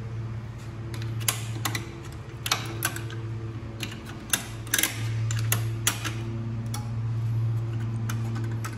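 Scattered sharp clicks and light knocks of metal and plastic parts being worked loose and pried off a snow blower's carburetor by hand and with a tool. Under them runs a steady low hum that gets louder about five seconds in.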